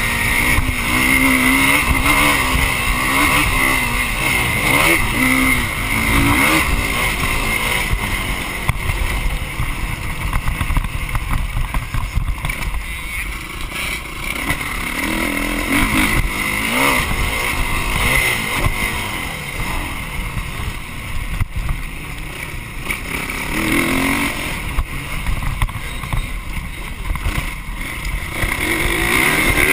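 Motocross dirt bike engine revving up and falling off again and again around the track, with its pitch rising and dropping, under a rush of wind noise on the microphone.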